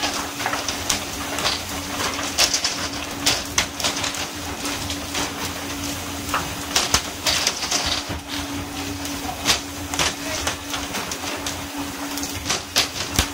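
Fish swung aboard by pole-and-line fishermen slapping and thudding onto the deck in irregular knocks, several a second at times, over the steady hum of the boat's engine and the hiss of water spray along the hull.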